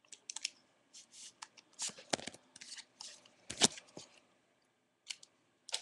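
Magic: The Gathering trading cards being handled and sorted by hand: a string of short rustles and clicks as the cards slide and flick against each other, the loudest about three and a half seconds in.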